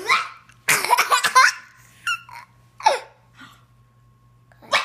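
Young child laughing hard in bursts, the longest a run of quick pulses about a second in, followed by a few short separate sounds and a brief laugh near the end.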